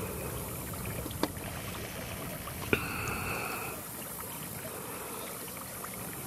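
Wind rumbling on the microphone over open-air ambience, with two sharp clicks, the second followed by a brief steady tone lasting about a second.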